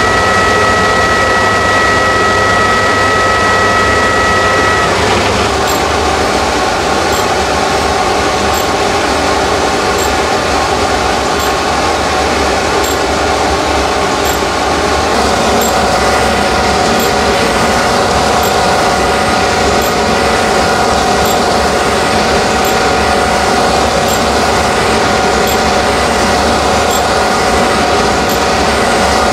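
Surface grinder running, its wheel grinding a flat on a workpiece set on a sine plate, under flood coolant. Steady loud machine noise whose tone shifts about five seconds in and again around fifteen seconds in.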